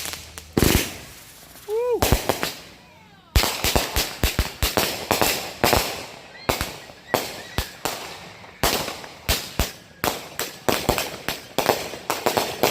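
Consumer fireworks going off: a rapid, irregular string of sharp bangs, often several a second, each with a short fading echo.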